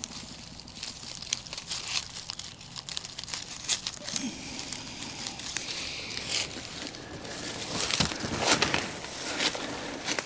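Footsteps crunching and rustling through dry fallen leaves on the forest floor, an irregular run of crackling steps that grows louder near the end.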